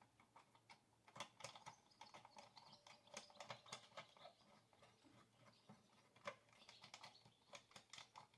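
Faint clicks and light rattles of plastic and metal as the side cover is fitted onto a Stihl MS 462 chainsaw by hand. The clicks are most frequent over the first few seconds, with one sharper click a little after halfway.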